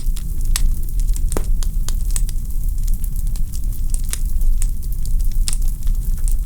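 Wood fire crackling in a fireplace: irregular sharp pops and snaps of burning logs, several a second, over a steady low rumble.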